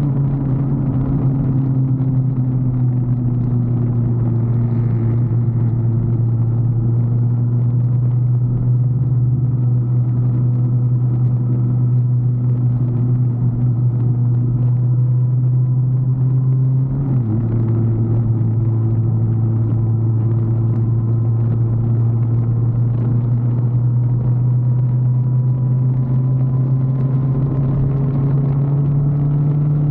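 Vehicle engine running steadily while under way. About seventeen seconds in its pitch drops, as with a gear change, then climbs slowly as the vehicle picks up speed.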